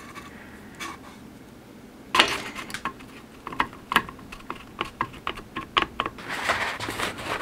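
Irregular sharp metallic clicks and taps, starting about two seconds in, as an AR-15 barrel extension is worked by hand into the upper receiver, with handling rustle near the end.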